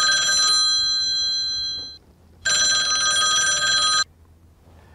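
Mobile phone ringing with an incoming call: an electronic trilling ring, heard twice with a short gap between. The second ring cuts off sharply about four seconds in as the call is picked up.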